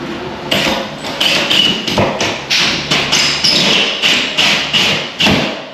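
Cordless drill driving a hole saw up into a plasterboard ceiling, the saw juddering in a run of sharp knocks about three a second as its teeth catch on the chicken wire behind the board.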